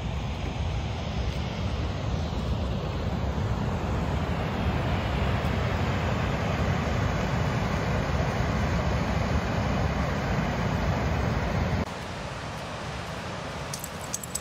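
Wind buffeting the microphone: a steady low rumble with a rushing hiss over it, dropping suddenly to a quieter rush about twelve seconds in.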